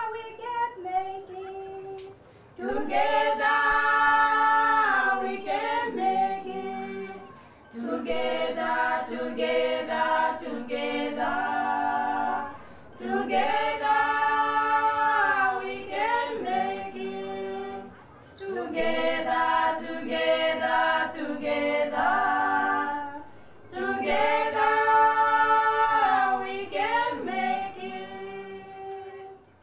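A cappella choir singing in several voices, phrase after phrase about every five seconds with short breaks between. It fades out at the end.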